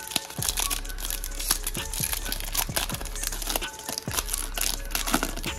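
Crinkly plastic wrapper of a basketball card pack being torn open and handled, with dense, irregular crackling throughout.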